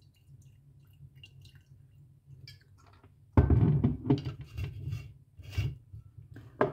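Liqueur poured from a glass bottle into a glass tumbler, a faint trickle with small clicks. About three and a half seconds in comes a loud knock with a low rumble as the bottle is handled and set down on the table, followed by several softer knocks and handling noises.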